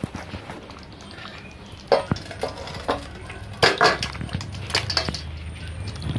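A steel kadai clanking and scraping against a stainless steel bowl as chicken curry is tipped out of it into the bowl. The clatters come in a few separate bunches, the loudest a little past halfway.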